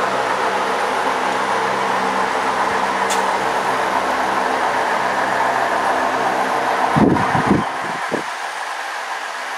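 HO scale model freight train rolling along the track: a steady rumble of many cars' wheels on the rails with a low hum underneath. A few loud low thumps come about seven seconds in, after which the low hum falls away.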